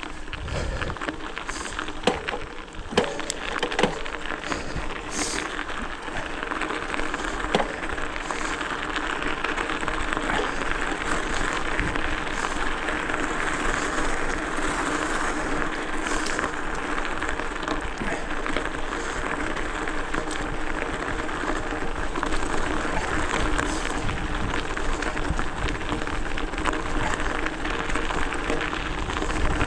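Hardtail e-mountain bike riding along a forest trail: a steady rush of tyres rolling over dirt, with a few sharp knocks in the first few seconds as the bike hits bumps.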